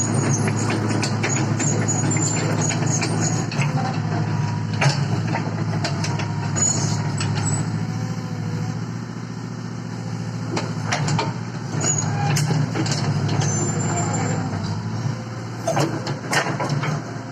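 Excavator's diesel engine running steadily, with scattered sharp clanks and knocks.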